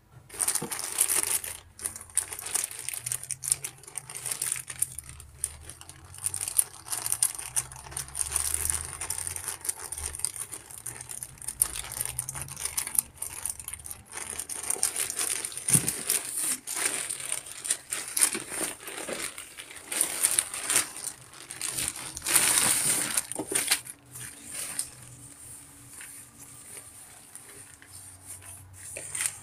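Plastic packaging bags crinkling and rustling in the hands as they are handled and opened, in irregular bursts, loudest about a second in and again a few seconds past the middle.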